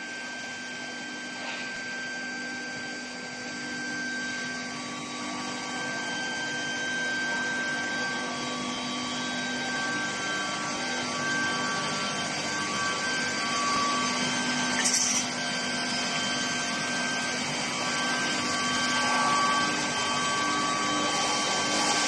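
Steel-pipe induction heat-treatment line running: a steady industrial hum over a noisy background, with several high held tones that waver slightly and a short hiss about two-thirds of the way through.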